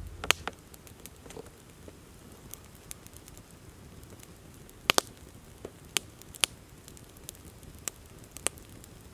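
Small wood campfire crackling, with scattered sharp pops: a loud one just after the start and a close pair about five seconds in.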